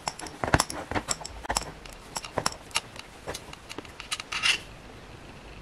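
Insulated copper electrical wires handled and twisted together by hand to make a splice: irregular light rubs and ticks of wire, stopping about four and a half seconds in.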